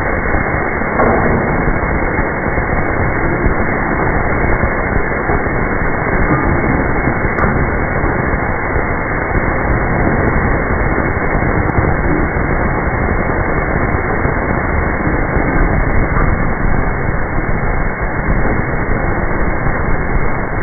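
Automatic brass-valve hot forging machine running: a steady loud mechanical din with a few faint clicks.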